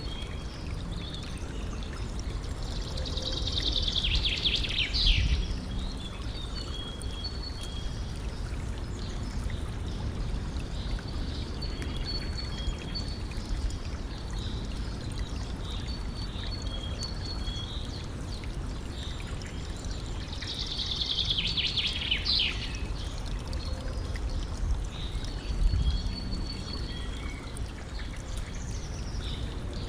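River stream flowing and trickling in a steady wash of water, with small birds singing over it: a louder song phrase a few seconds in and another about two-thirds of the way through, and thin repeated chirps in between.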